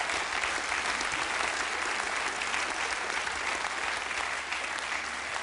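Studio audience applauding: dense, steady clapping that holds at an even level and thins slightly near the end.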